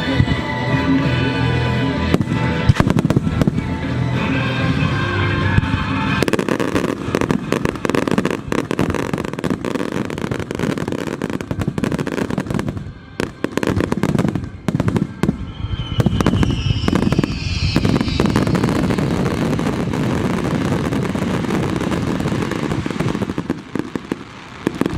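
A fireworks star mine finale: shells bursting in rapid succession with dense booms and crackling. Music plays under it for the first few seconds, after which the bursts crowd it out.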